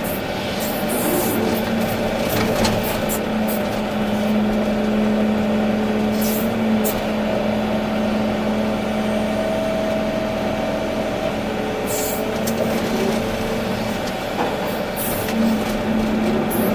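Volvo EC380D crawler excavator running under work, its diesel engine a steady hum. A higher whine, typical of the hydraulic pumps, comes in near the middle, and there are several short hisses.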